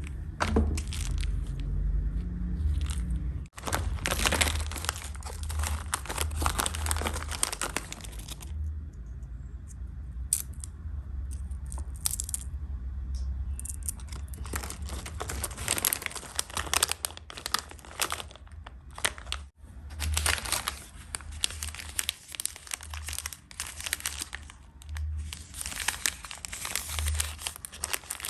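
Plastic candy and snack wrappers being torn open and crinkled by hand, in several bursts of a few seconds each with short pauses between.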